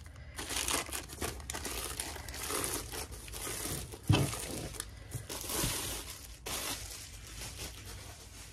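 Clear plastic wrapping crinkling and rustling as it is pulled off a rolled diamond-painting canvas, with a single thump about four seconds in.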